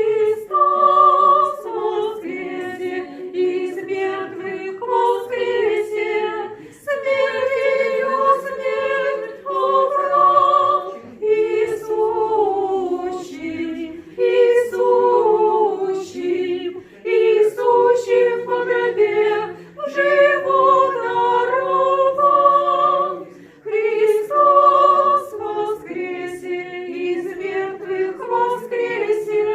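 Orthodox church choir singing a cappella, in phrases broken by short pauses.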